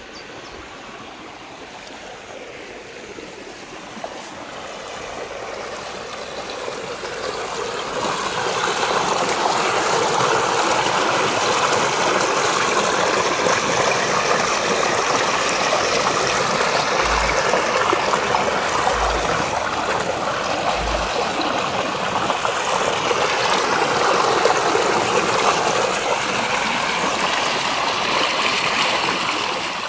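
Shallow rocky creek burbling over stones and small riffles. It grows louder over the first several seconds, then runs steadily.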